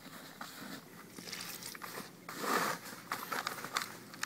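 Hand mixing damp groundbait of crumb, pellets and corn in a plastic bucket, with irregular small clicks, while water is poured in from a bait tray to make it sticky.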